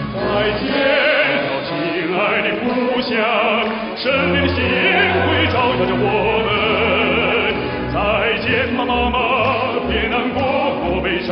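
Male operatic baritone singing a Chinese song in classical style, with orchestral accompaniment.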